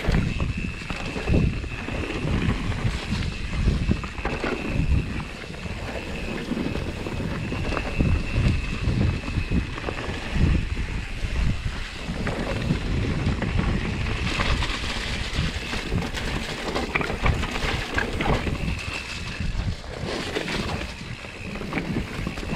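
Wind buffeting the microphone in irregular gusts, a low rumbling that rises and falls throughout.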